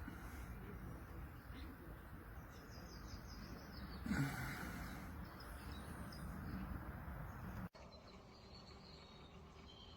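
Outdoor background noise with a few short bird chirps. About four seconds in there is a brief louder rustle, and a little before the end the background cuts abruptly to a quieter one.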